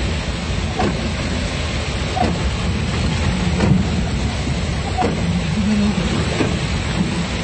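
Heard from inside a vehicle driving through floodwater in heavy rain: a loud, steady rushing of rain and water, with windshield wipers sweeping about every second and a half.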